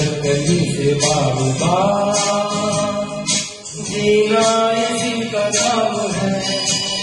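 A man singing a Bollywood film song into a microphone over karaoke backing music, holding long notes, with a short break between phrases about three and a half seconds in.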